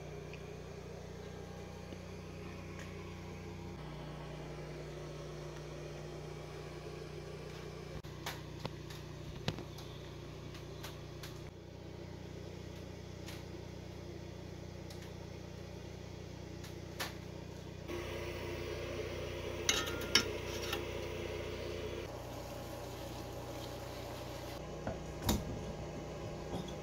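Steady low hum of a small workshop, with a few scattered light clicks and clanks as metal engine parts are handled.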